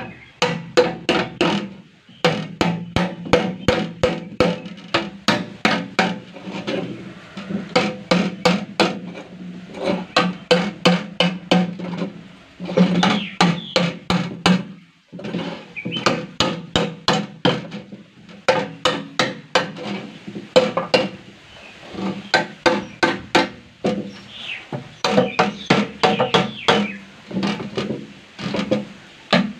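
Rapid, regular hammer blows on the tin lid of a metal drum as a square opening is cut and knocked out, about four strikes a second. The drum rings after each blow. The runs break off briefly twice.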